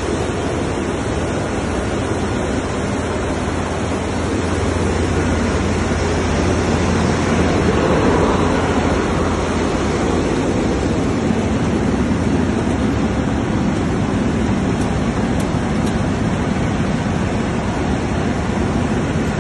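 Seed cleaning machine running, with seed passing through it: a loud, steady mechanical rush with a low hum that fades about halfway through.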